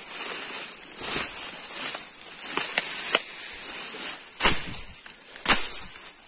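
Tall marsh grass rustling and swishing as a person pushes through it on foot, with two heavy thumps about four and a half and five and a half seconds in, over a steady high-pitched hiss.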